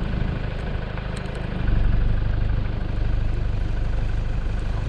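A low engine rumble running steadily, getting louder about a second and a half in.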